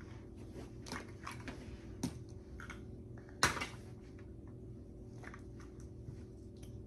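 Light clicks and knocks of plastic toys being handled, with one sharper click about three and a half seconds in, over a faint steady room hum.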